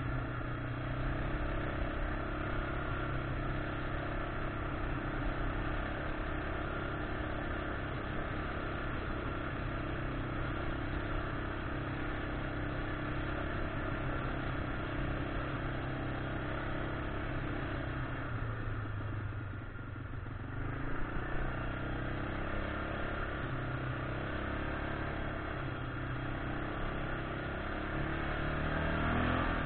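1999 Yamaha Grizzly 600 ATV's single-cylinder four-stroke engine running steadily under way. It eases off briefly about two-thirds of the way through, then revs up with rising pitch near the end.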